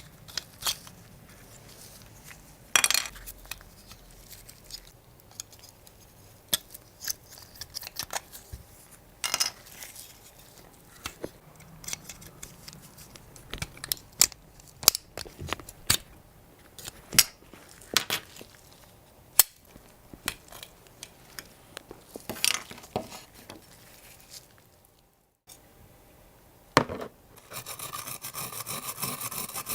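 Small metal and plastic parts of a diecast model car being handled on a work surface: irregular light clicks, taps and clinks. Near the end a steady, fast rasping starts, like filing.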